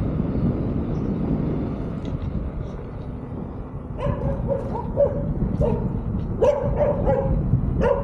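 A dog barking repeatedly, starting about halfway through, over a steady low rumble of wind on the microphone.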